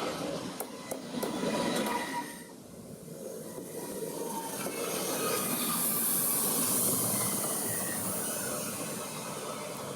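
A train passing on the rails: wheel and track noise with a hiss that swells to its loudest about six to seven seconds in, and faint thin whines from the wheels.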